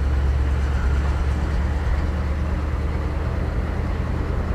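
Chevrolet Silverado pickup's engine and shortened exhaust, a steady low drone while cruising, heard from inside the cab.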